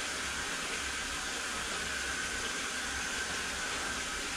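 High-pressure sewer jetter running with a Warthog rotating root-cutting nozzle in the drain line: a steady rushing hiss of water jetting, with a steady high whine through it.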